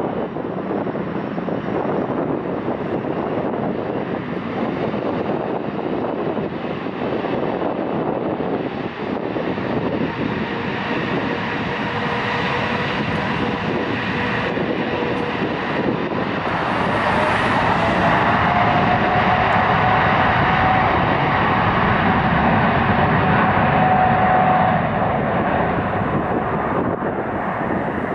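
Jet engines of an EgyptAir Boeing 777-300ER (GE90 turbofans) running on the runway, a steady rush with a faint whine in it. About halfway through the noise grows louder and a higher whine rises a little as the engines spool up for the takeoff roll.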